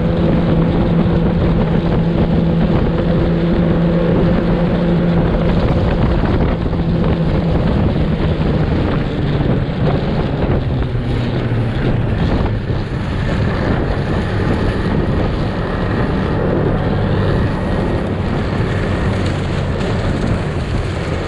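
Snowmobile engine running under way, with wind buffeting the microphone. The engine note is strongest in the first several seconds and eases off in the second half as the sled slows.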